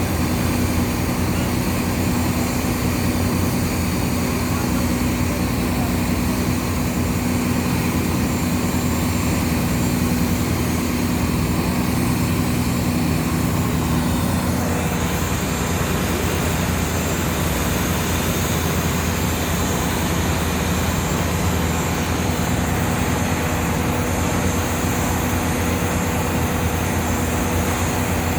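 A boat engine running hard and steadily, a continuous deep drone with a hum, as the boat strains to tow a stranded three-deck ship out of the mud. Its note changes about halfway through.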